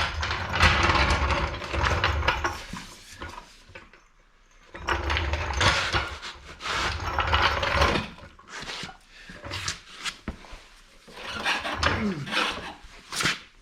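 Snowmobile skid frame being pulled and worked into place under the sled: scraping and rubbing in two long stretches, then scattered knocks and clicks.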